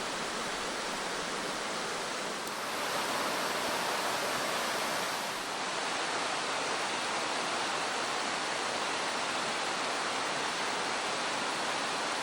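Steady rushing of running water, a little louder from about three seconds in.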